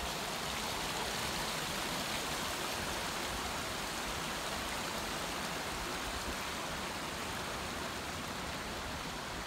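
Mountain creek rushing steadily over granite boulders, an even, unbroken water noise.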